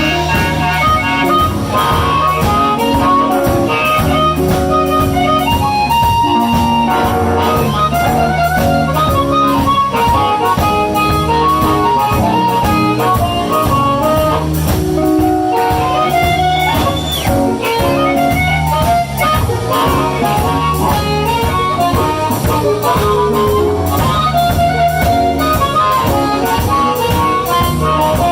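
Live blues band playing an instrumental break: a lead instrument plays a melodic line over bass and a steady drum beat.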